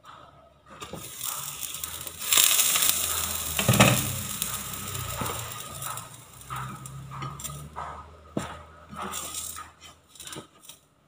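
Glass lid lifted off a hot nonstick frying pan: a loud hiss of sizzling as the condensation drips onto the hot pan, with a clank of the lid. Near the end, a spatula scrapes and taps in the pan.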